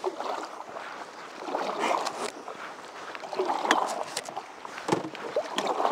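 Canoe paddles dipping and pulling through lake water in repeated strokes about every two seconds, with a few sharp knocks of wood or plastic against the boat.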